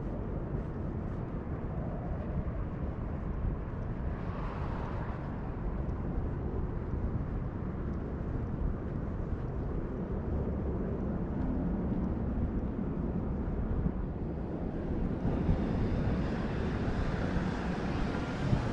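Outdoor street ambience: a low, steady rumble of distant traffic, with a car driving past on the street, growing louder near the end.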